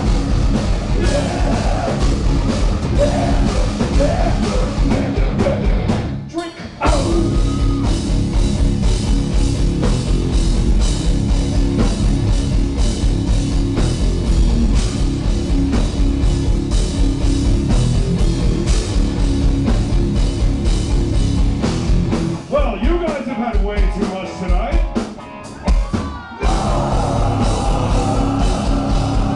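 Heavy rock band playing live and loud: electric guitars, bass guitar and drum kit, with vocals. The band drops out briefly about six seconds in, and again for a few seconds around twenty-five seconds in.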